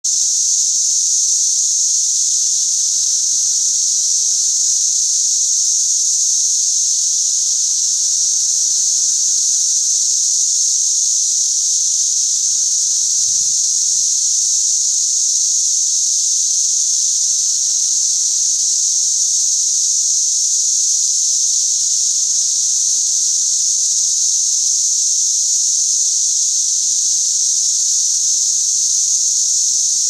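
Loud, steady chorus of periodical cicadas, a continuous high-pitched hiss-like drone that holds without a break or change. The filmed females are silent; the calling comes from the males around them.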